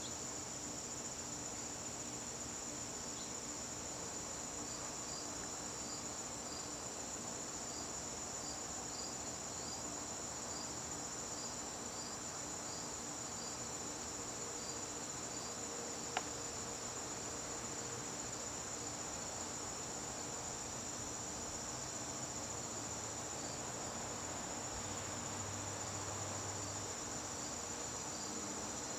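Crickets singing in a steady chorus: a continuous high trill, with a slower series of short chirps repeating about once a second beneath it. A single sharp click sounds about halfway through.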